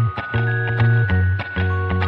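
Instrumental background music with a steady beat, held bass notes and long sustained higher tones.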